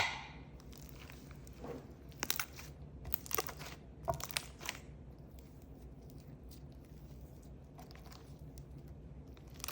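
Sticky clay slime being squished and pulled by hand, giving a scatter of small crackles and pops in the first half, then going quieter.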